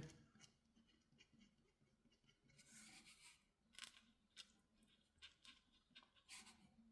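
Near silence broken by a few faint, scattered scratchy ticks of a pen tip on paper as white is added to the birds' eyes.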